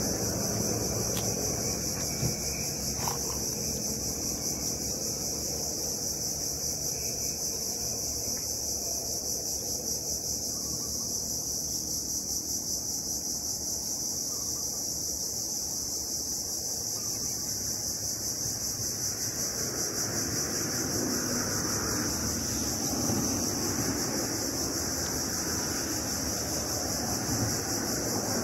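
Steady insect chorus: a continuous shrill drone in two high pitches that does not change, over a low steady rumble.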